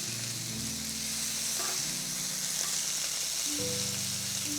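Chicken skewers sizzling steadily on a smoking-hot cast iron grill pan, under background music of held low notes.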